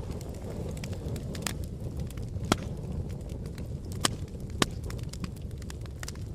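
Fire burning: a steady low rumble of flames, with scattered crackles and sharp pops. The loudest pops come about two and a half, four and four and a half seconds in.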